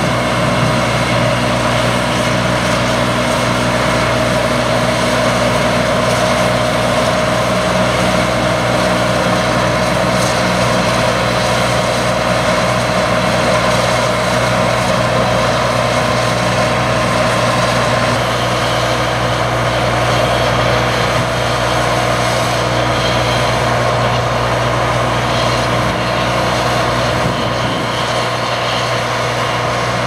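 Case IH 2388 Axial-Flow combine harvester at work cutting and threshing canola: a steady, loud diesel drone mixed with the machine's running noise, holding one even pitch throughout.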